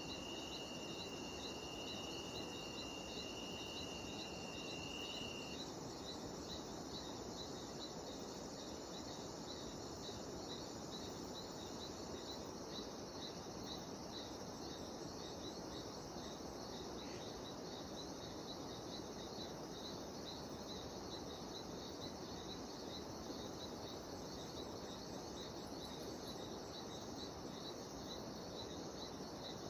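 Chorus of cicadas and other insects in tropical forest, a steady, rapidly pulsing high trill over a low background rush. One extra high steady whine stops about five seconds in.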